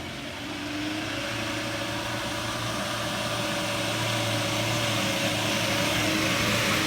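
A motor vehicle's engine running steadily over a rushing noise, growing gradually louder.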